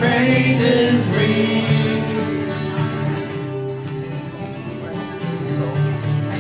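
A live worship song: acoustic guitar strummed in steady chords, with a woman singing into a microphone.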